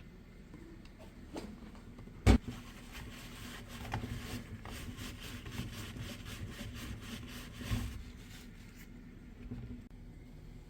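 A single sharp knock, then quick back-and-forth scrubbing strokes, about three or four a second, for about six seconds: a cloth wiping down a refrigerator surface.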